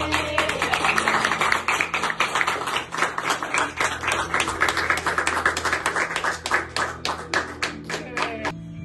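Small group applauding by hand-clapping, dense at first and thinning to a few scattered claps before stopping near the end.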